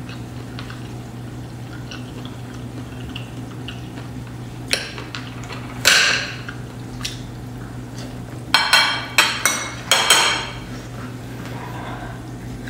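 A metal spoon and fork clinking and scraping against a ceramic dinner plate while cutting food: a single strike about five seconds in, a louder one about six seconds in, and a quick cluster of several clinks about nine to ten seconds in. A steady low hum runs underneath.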